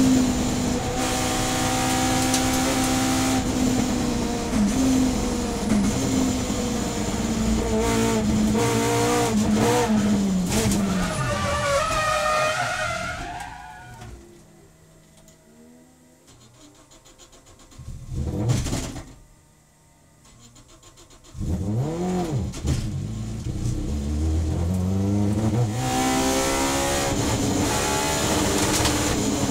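Onboard sound of a Subaru BRZ race car's short-stroke 2-litre flat-four boxer engine with individual throttles and a 4-1 exhaust, heard from inside the cabin. The engine runs hard at first, and its note falls away as the car slows almost to a stop. It then goes quiet for about seven seconds, broken by one short rev. About two thirds of the way through it comes back loud, revving up through the gears as the car accelerates away.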